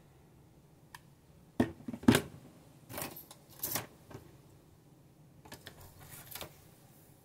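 Hands handling a hollow plastic toy gun and its plastic and cardboard parts on a tabletop: two sharp plastic knocks, the second the loudest, then scattered clicks and rustles.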